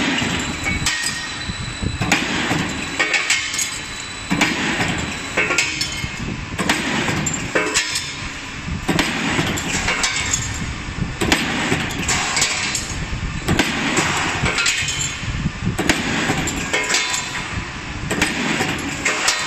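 Automatic wire stamping and bending machine cutting and forming steel wire into hex key wrenches: repeated metallic clanks and clinks every second or so over a steady running machine noise.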